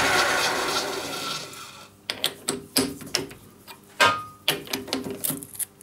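A metal lathe running and dying away over the first second or two, followed by a series of light metallic clicks and taps as a small turned metal part is handled against the jaws of a vise; the sharpest tap, about four seconds in, rings briefly.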